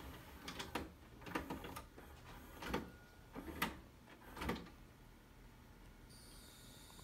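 VHS VCR's tape-loading mechanism clicking and clunking as it threads the tape after Play is pressed: about six short mechanical clunks over the first five seconds, then it goes quiet.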